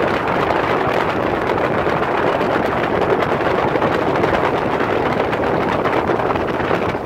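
Steady rush of wind and road noise heard from an open trailer towed along a gravel road behind a diesel pickup truck.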